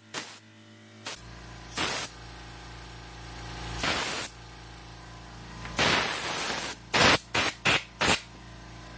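Compressed-air blow gun blasting dust off a fan: three longer hissing blasts, then several quick short bursts near the end. Underneath, the air compressor's motor kicks on about a second in and runs steadily.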